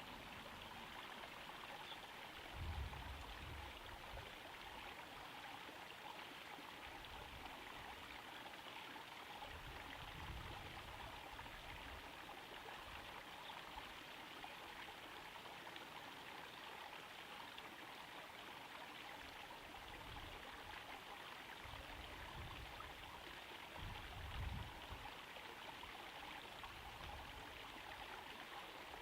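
Small garden pond waterfall trickling steadily into the pond. Two brief low rumbles stand out, one about three seconds in and one near the end.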